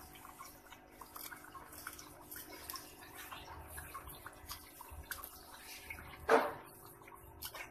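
Beef paya in tomato-chilli masala sizzling and bubbling in a pot as it is fried down and stirred with a wooden spoon: a steady crackle of small pops. One brief louder sound a little over six seconds in.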